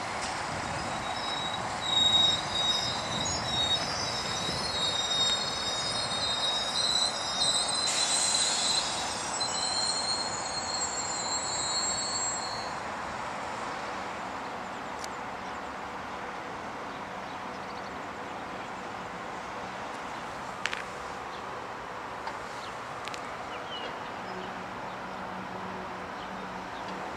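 Train wheels squealing on curved track and points as a passenger multiple unit rolls through the station: shrill, wavering squeals over roughly the first twelve seconds. After that comes a quieter, steady rolling noise with a few clicks.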